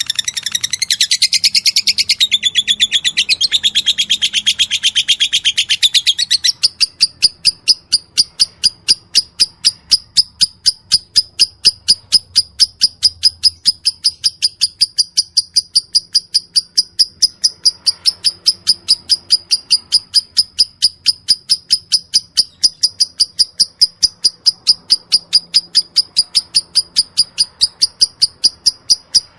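Lovebird singing: a rapid jumble of high chattering notes for about six seconds, then a long, steady run of sharp, high ticks about three to four a second. This is the machine-gun 'ngetik' (typing) call of a lovebird.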